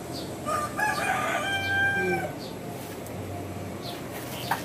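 A rooster crows once, starting about half a second in and lasting about two seconds, ending on a long held note.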